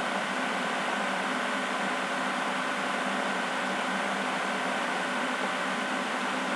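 Steady hiss with a few faint unchanging hum tones underneath: constant background room noise, with no distinct event.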